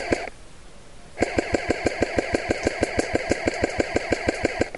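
Airsoft electric rifle (AEG) firing: a short burst right at the start, then about a second later a sustained full-auto burst of about three and a half seconds, a steady motor whine under a rapid rattle of about seven shots a second.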